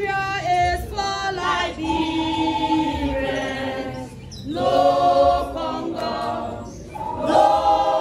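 Background music of a choir singing long held notes, with a short break about four seconds in and a low pulse underneath.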